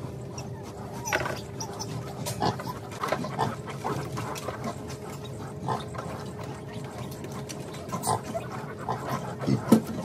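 Pigs calling in the pens of a pig barn: short, irregular squeals and grunts, the loudest just before the end, over a steady low hum.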